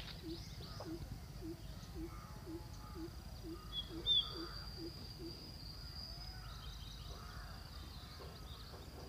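A bird calling one low note over and over, about twice a second for some five seconds, with a few faint high chirps of smaller birds around it.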